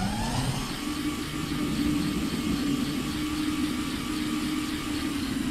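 A motor running steadily with a humming whir, its pitch rising quickly just as it starts.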